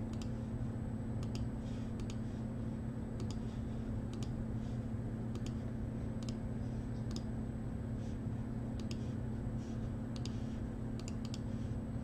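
Clicks of a computer mouse and keyboard keys at uneven intervals, over a steady low hum.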